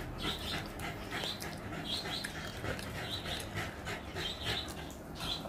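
Close-miked wet chewing and lip-smacking of a mouthful of rice and chicken curry, short smacks coming irregularly about twice a second.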